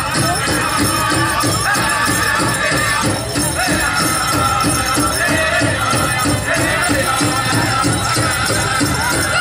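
Powwow drum group playing a chicken dance song: a large drum struck in a steady, even beat under high, wavering singing, with the jingling of bells on the dancers' regalia.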